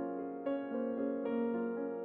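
Background music: a slow, gentle piano melody, with new notes struck about every half second to second.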